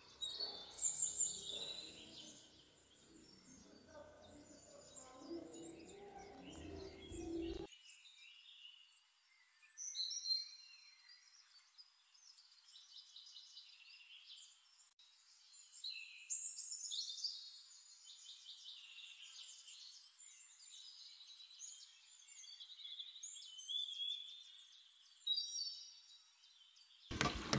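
Songbirds chirping and singing in bursts of high, quick whistles and trills.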